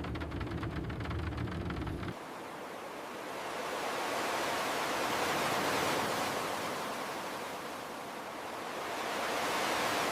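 A low steady rumble with a light patter for about two seconds, then it cuts to a wash of ocean surf that swells and ebbs twice, like waves rolling onto a shore.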